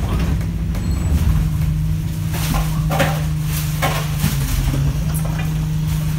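Enviro 200 single-deck bus running with a steady low engine note as it stands at a stop. There are sharp hisses of compressed air from the brakes and door gear about two to four seconds in, and the front doors open near the end.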